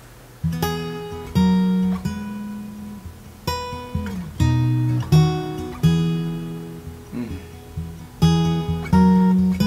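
Solo guitar playing a slow intro: notes and chords plucked and left to ring out, a new one about every second.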